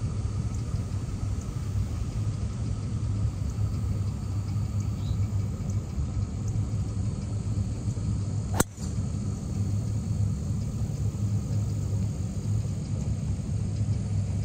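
A golf driver striking a teed ball once, a single sharp crack about eight and a half seconds in, over a steady low rumble.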